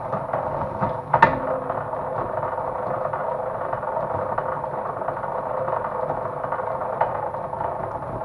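A small machine running steadily, with a sharp click about a second in and a fainter one near the end.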